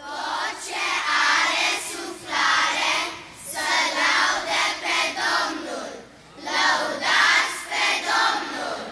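Children's choir singing together, coming in suddenly and going on in phrases broken by short pauses.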